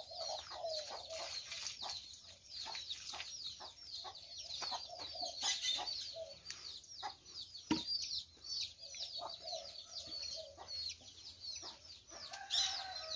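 A brood of chicks peeping rapidly and continuously in short, high, falling chirps, with a hen clucking lower beneath them. Scattered short knocks and slaps from wet mud being pressed by hand into a wooden adobe mold, one sharper knock about eight seconds in.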